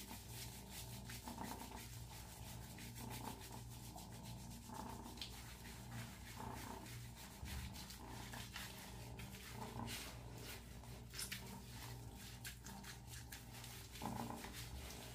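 Hands rubbing and massaging medicated shampoo into a wet kitten's coat: faint, irregular rubbing strokes over a steady low hum.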